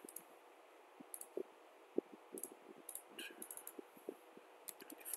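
Irregular clicks of a computer mouse, a few coming in quick runs, over faint room tone.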